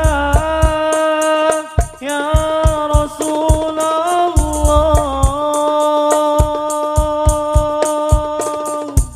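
Male lead vocalist singing sholawat in long, held high notes with wavering melismatic ornaments, over hadrah frame drums striking irregular beats. The sound drops away right at the end.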